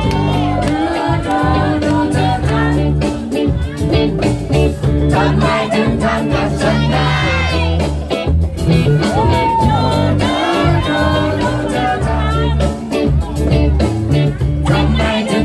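Live reggae band playing a song: electric guitar, electric bass and congas, with a singer's voice over a steady bass line.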